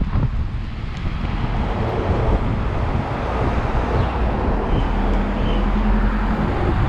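Wind buffeting the microphone of a moving camera, mixed with road traffic; a steady low hum runs through the second half.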